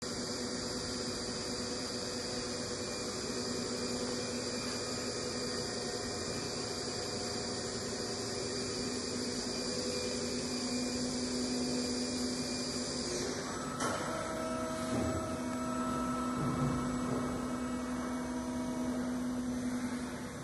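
Steady electrical and mechanical hum of machine-shop equipment, made of several steady tones. About 13 s in, the high whine stops with a knock and a different set of humming tones takes over.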